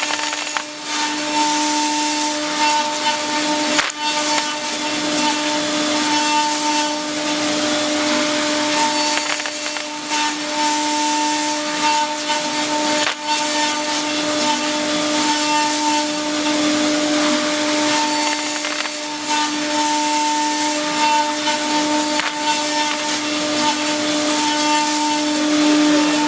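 Hurco VMX42HSi CNC machining center roughing through aluminum with a Millstar cutter: a steady whine of the spinning tool over a constant hiss of cutting, with a few brief clicks.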